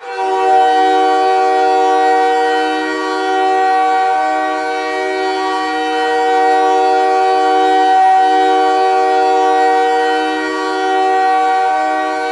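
Montreal Canadiens' ice-hockey goal horn blowing one long, steady blast of several tones sounding together, the arena signal that the home team has scored.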